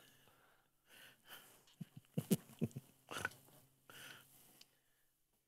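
Faint breathing and short mouth and nose sounds close to a microphone, with a few brief murmured or hummed vocal sounds in the middle.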